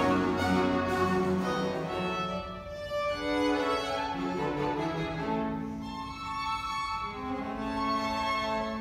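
Baroque string ensemble playing: violins and viola sustaining bowed notes over a cello bass line.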